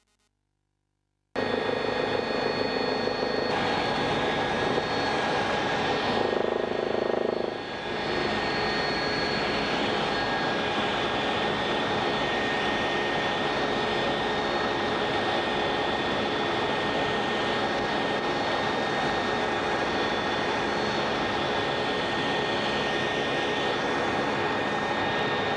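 Helicopter in fast, low flight heard from inside the cabin: a steady engine and rotor din with a high, even whine. It starts abruptly about a second in and briefly changes in tone about six to eight seconds in.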